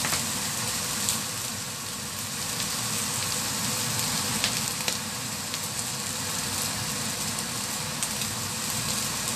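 Rice and green chilies sizzling as they are stir-fried in a steel wok and turned with a wooden spatula. A steady frying hiss runs throughout, with a few scattered light clicks.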